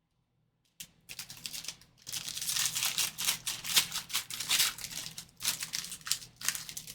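A trading-card pack wrapper being torn open and crinkled, a rapid irregular crackling that starts about a second in and keeps going.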